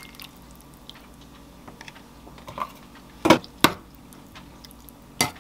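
Metal spoon stirring soup in an enamelware bowl, with small scraping ticks and a few sharp clinks against the bowl: two close together a little after three seconds in, and one more near the end.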